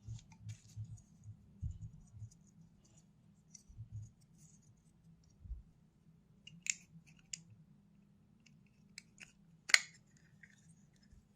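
Light clicks and taps of the small parts of an evap canister purge valve being handled and fitted back together, with a few soft low bumps early on and a sharper click near the end.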